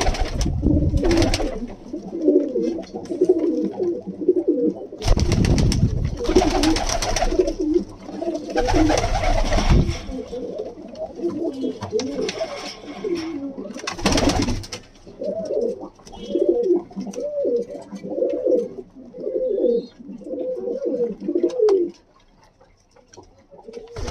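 Pigeons cooing over and over in low, rounded calls, with several loud bursts of rustling noise in between. The cooing stops a couple of seconds before the end.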